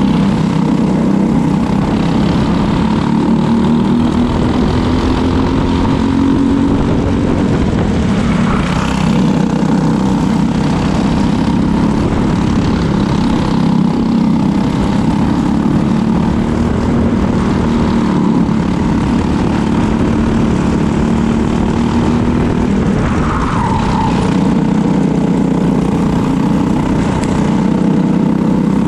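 Briggs & Stratton LO206 four-stroke single-cylinder kart engine running at racing speed, its pitch rising over several seconds as it accelerates and dropping back as it slows for corners.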